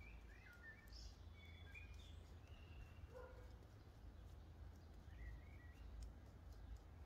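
Faint outdoor ambience: a few scattered bird chirps over a steady low rumble.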